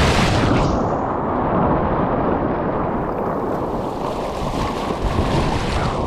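Loud, steady rush of whitewater pouring down a waterfall's rock slide, close to the microphone. About half a second in it turns duller, losing its hiss.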